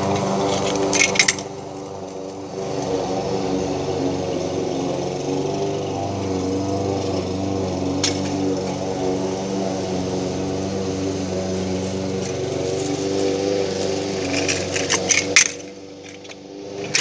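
A small engine runs steadily at one even pitch. Near the end a kick scooter clatters on the pavement in a quick run of clicks and knocks.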